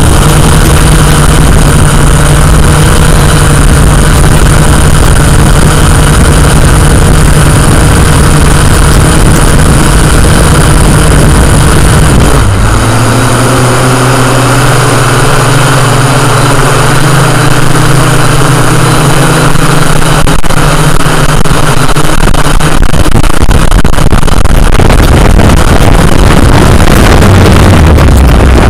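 Drone's motors and propellers running, a loud, steady hum with a rushing noise over it. The hum drops in pitch a little under halfway through as the motors slow.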